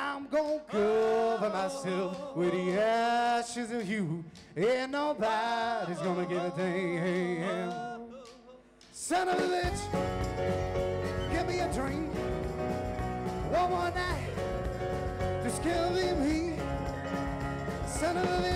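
Live singing without instruments, then, about nine seconds in, after a short pause, a folk-rock band comes in with drums, bass, fiddle and guitars playing a country-style tune.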